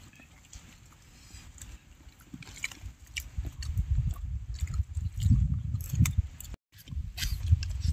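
Close-up chewing and mouth clicks of people eating, under a low rumble on the microphone that grows louder from about three seconds in; the sound cuts out for a moment near the end.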